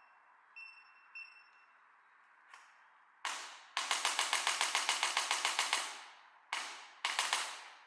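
Electric chiropractic adjuster gun: two short electronic beeps, then a single sharp thrust of its impulse head, a burst of rapid repeated thrusts at about eight a second lasting some two seconds, and two more single thrusts near the end.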